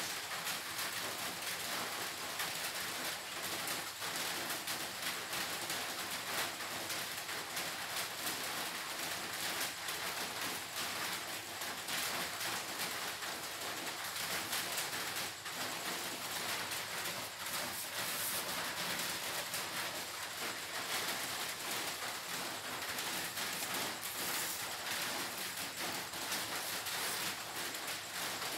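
A steady, even hiss with a fine crackle in it, unchanging throughout.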